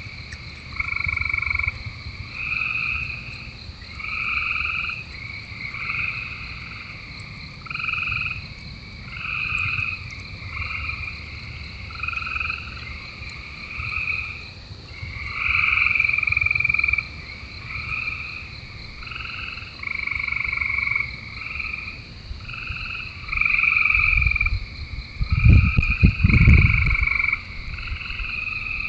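Chorus of frogs calling from the pond: trilled calls about a second long, repeating every second or two over a steady high whine. About three-quarters of the way through, a few seconds of low rumbling thumps, the loudest sound.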